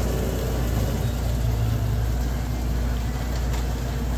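Air conditioner running with a steady low hum.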